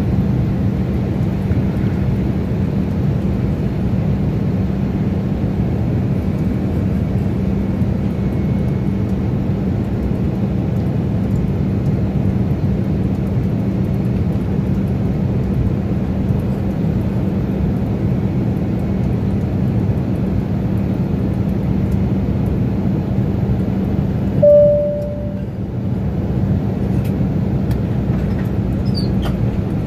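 Airliner cabin noise in flight: the steady rush of engines and airflow, with a low hum underneath. A single short tone sounds once near the end.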